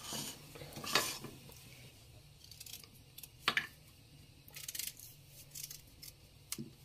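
Short, crisp scraping clicks of a vegetable peeler's blade cutting the ends off a raw sweet potato, scattered through the stretch with quiet between them.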